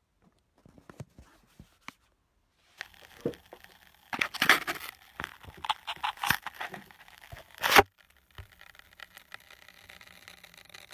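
Handling noise right on the recording device's microphone: a few light clicks, then several seconds of loud rustling and scraping, ending in one sharp knock a little before the eighth second, followed by faint rustle.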